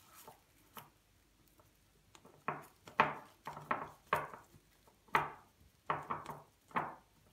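Soft knocks and rustles of hands pressing warm semolina halva into a glass bowl lined with cling film, the bowl bumping against the counter. About eight short knocks, starting about two and a half seconds in.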